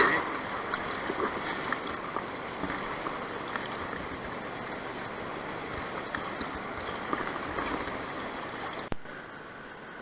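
Shallow river water rippling and running over rocks, a steady rushing with a few faint ticks. About nine seconds in it drops suddenly to a quieter hiss.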